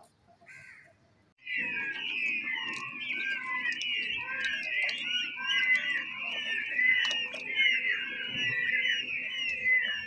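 A crowd of peachicks (peafowl chicks) peeping nonstop, many high chirps overlapping. The peeping starts suddenly about a second and a half in, after a near-quiet start.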